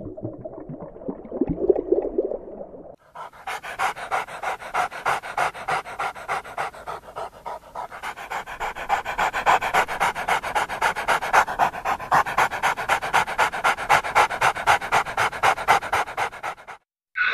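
Dog panting fast and evenly, about five breaths a second, starting about three seconds in and growing louder from about eight seconds. A different, lower-pitched sound fills the first three seconds.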